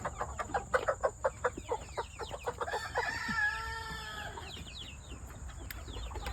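Chickens clucking in a quick run of short repeated calls, with a longer held call like a rooster crowing about three seconds in, then scattered quieter clucks.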